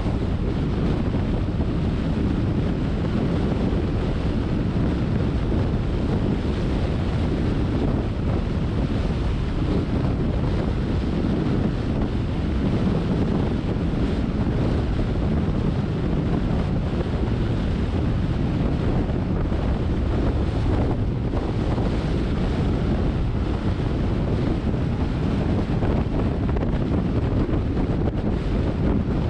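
Steady low rumble of a moving car: wind buffeting the microphone over tyre and road noise.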